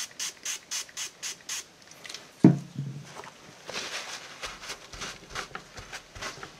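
Hand pump spray bottle squirted in quick succession, about four sprays a second for a second and a half, wetting a dyed fabric strip to dilute ink that came out too intense. A single thump follows about two and a half seconds in, then gloved hands rubbing the damp fabric.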